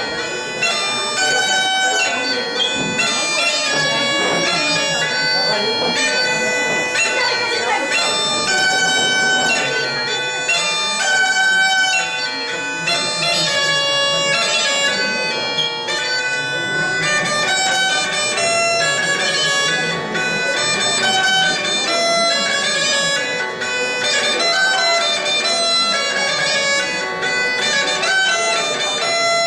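Bagpipes playing a quick melody over a steady held drone.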